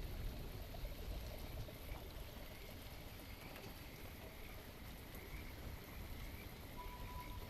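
Steady soft water ambience, a rain-like patter and trickle over a low rumble. Faint short high tones come now and then, and a faint steady tone starts near the end.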